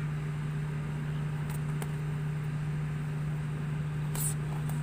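A steady low motor hum, with a few short sharp smacks, the loudest about four seconds in.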